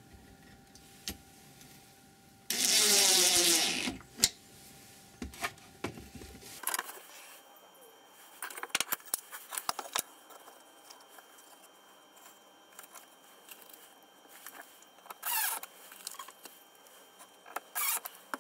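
DeWalt cordless impact driver driving screws into plywood: one long burst about two and a half seconds in, and shorter bursts near the end. In between come clicks and knocks as the wooden pieces are handled.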